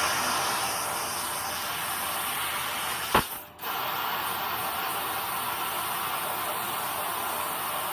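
1 kW Raycus fiber laser cutting machine running with a steady hiss. About three seconds in comes a sharp click and a brief drop, then the hiss resumes.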